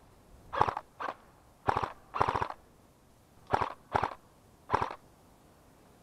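Airsoft guns firing seven short full-auto bursts, each a fast rattle of shots lasting a fraction of a second, clustered over about four seconds.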